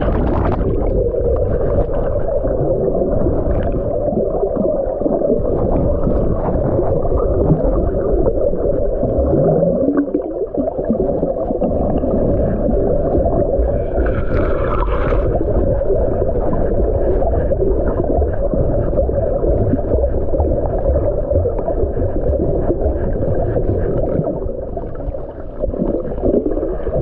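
Muffled, steady rumbling and rubbing of an underwater camera's housing pressed against mesh fabric, with water gurgling around it. A brief higher scrape comes about halfway through.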